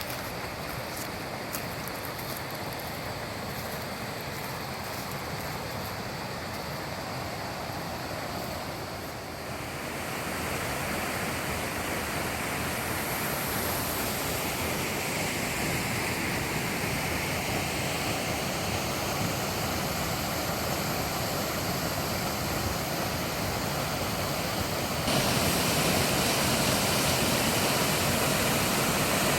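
Waterfall rushing, a steady wide hiss of falling water with no engine under it. It gets louder in two steps, about ten seconds in and again near the end.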